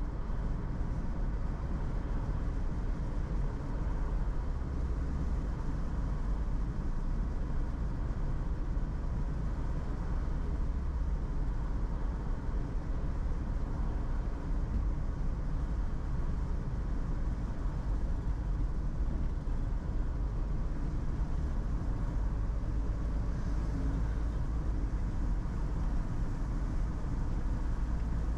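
A car driving at a steady speed: a constant low rumble of engine and tyres on the road, with a faint steady whine and no changes.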